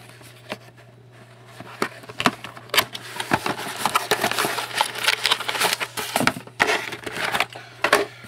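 Trading-card packaging being handled and opened: scattered clicks and taps at first, then a busy stretch of crinkling and rustling with many sharp clicks from about three seconds in, over a steady low electrical hum.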